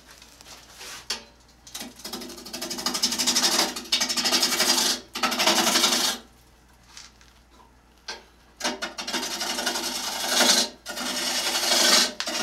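Swept-back bowl gouge cutting a spinning wooden bowl blank on an electric lathe, shearing off shavings while truing up the blank. It makes a rough shearing hiss in passes of one to two seconds, with quiet gaps between cuts; the longest gap is a couple of seconds, about halfway through.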